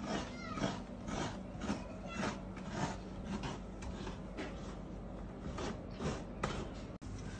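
A coconut half scraped against a coconut grater, rhythmic rasping strokes about twice a second as the flesh is shredded for coconut milk.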